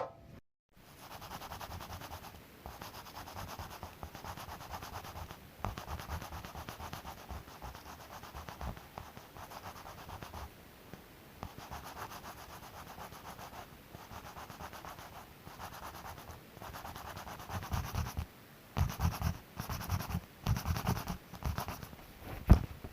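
Sandpaper being rubbed by hand over hardened body filler on a car's body panel, in runs of quick back-and-forth strokes, smoothing the putty before primer. The strokes get heavier near the end, with one sharp knock.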